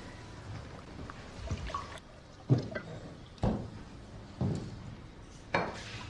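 Slow footsteps on a wooden floor: four dull steps about a second apart, the first the loudest.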